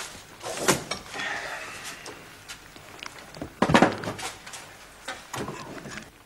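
A few separate knocks and clatters of things being handled and set down in a kitchen, the loudest about halfway through: a wicker basket being put down and a ladle working in a metal pot.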